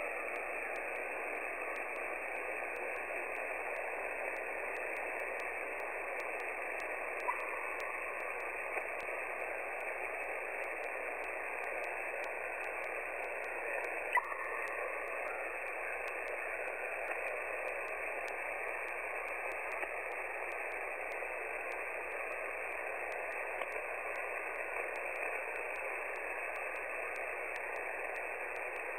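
Shortwave amateur radio receiver on the 20-metre band at 14.325 MHz, hissing with steady static on an open single-sideband voice channel while no station is transmitting. A few faint crackles come through, with one sharper click about halfway through.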